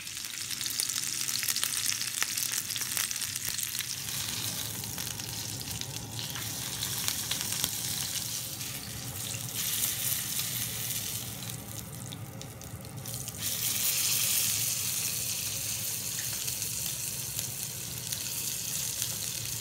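Rack of lamb searing in a hot skillet over a gas burner, fat and juices sizzling steadily as the meat browns. The sizzle grows louder about two-thirds of the way through.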